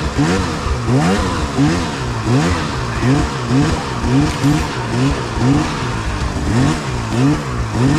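Two-stroke Arctic Cat Alpha snowmobile engine revved up and down over and over, about once a second, as the sled is worked over hard, icy snow.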